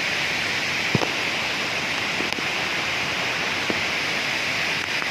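Waterfall water rushing steadily, an even hiss of falling water with a few faint ticks in it.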